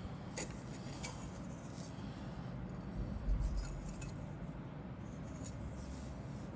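Plastic model kit sprues clicking and rattling lightly as they are handled and moved, with a dull thump about three seconds in, over a steady low hum.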